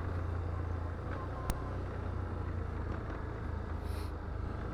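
Can-Am Outlander ATV's V-twin engine running steadily while riding along the trail, with one sharp click about a second and a half in.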